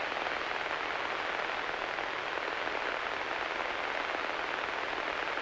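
Steady radio static hiss in the headset audio, with no Morse ident coming through: the navigation receiver turned up to identify the ILS, which seems still too far away to pick up.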